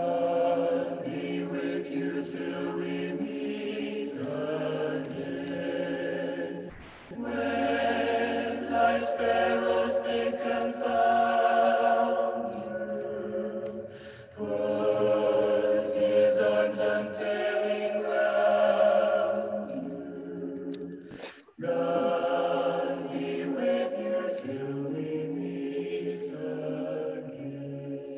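A choir singing a cappella in long held phrases, with a brief pause about every seven seconds.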